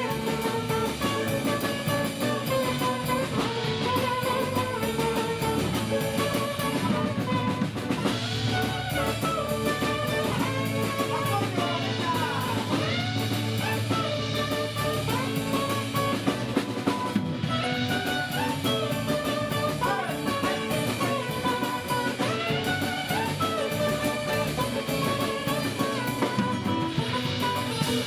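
Instrumental jazz-style band music: a guitar playing a bending melodic line over a drum kit.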